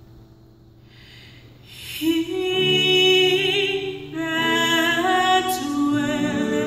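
Women's gospel choir singing held chords with vibrato, coming in loudly about two seconds in after a quiet lead-in.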